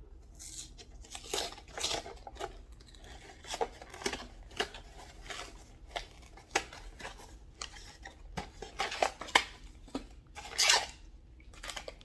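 Packaging being handled and opened by hand: rustling and tearing with irregular clicks and taps. The loudest swish comes about ten and a half seconds in.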